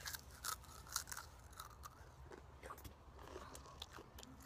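Close-up chewing of Takis rolled tortilla chips: two sharp crunches in the first second, then quieter, scattered crunching as they are chewed.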